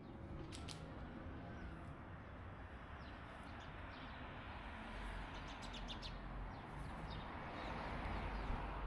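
Small birds chirping in short, scattered calls over a steady outdoor hum that grows louder near the end.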